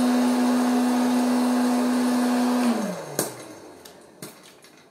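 Silvercrest 1200 W hot-air popcorn maker running with a steady hum, then switched off near three seconds in, the hum falling in pitch as the fan winds down; a few sharp clicks follow. The batch is nearly all popped.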